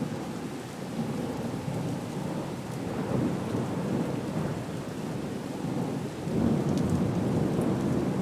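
Thunderstorm: rolling thunder rumbles continuously over steady rain, swelling louder about three seconds in and again about six and a half seconds in.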